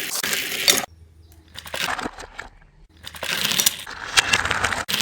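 Rustling, crackling handling noise with many small clicks, in two loud stretches with a quieter gap in the middle.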